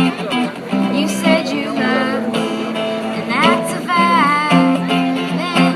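Live music: a strummed acoustic guitar with a voice singing a melody that bends in pitch around the middle.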